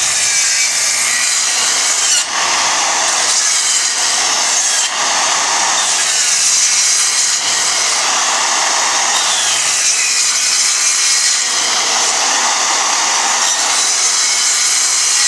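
Circular saw running along a guide rail and cutting a tapered dado groove into plywood: a steady, continuous run of blade-in-wood noise with only small dips in level.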